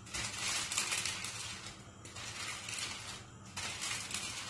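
Wooden rolling pin rolling out dough under a sheet of baking paper, the paper rustling and crinkling in three rolling strokes.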